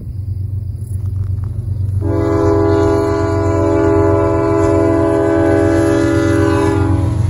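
Horn of an approaching CN freight locomotive, a GE ES44DC, sounding one long steady blast from about two seconds in until just before the end. Under the horn is the steady low rumble of the diesel engines and train, growing louder as it nears.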